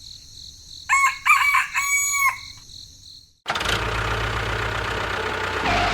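A rooster crows once, a call in several parts with a long final note. After a brief gap, a steady machine hum with a low drone starts about halfway through and runs on.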